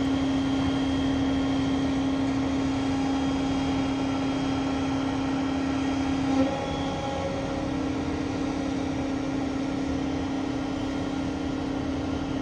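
Grove mobile crane's engine running with a steady hum while it lifts. About six seconds in there is a brief knock, and the hum wavers for a moment before settling a little quieter.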